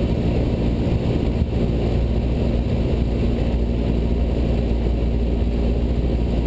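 Cessna 172 Skyhawk's piston engine and propeller droning steadily, heard from inside the cabin.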